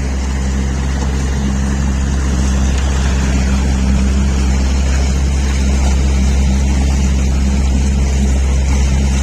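Motorboat engine running steadily under way, a constant low drone with water and rushing-air noise over it.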